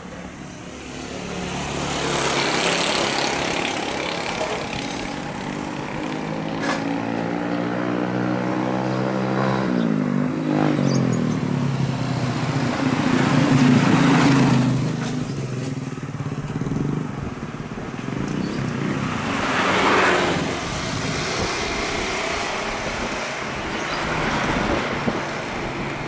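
Airbus A320-214's CFM56 jet engines on landing approach, passing overhead: the engine tone falls in pitch about ten seconds in, then the engine noise rises to its loudest, a low rumble. There are further swells of noise before and after.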